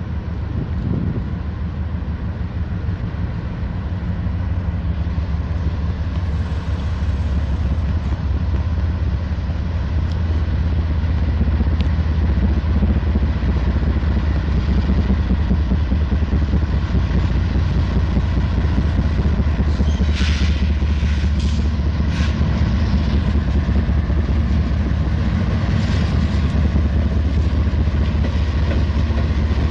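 Diesel locomotive engine rumbling as a train draws near, growing louder over the first ten seconds or so and then holding steady, with a few short sharp clanks about two-thirds of the way through.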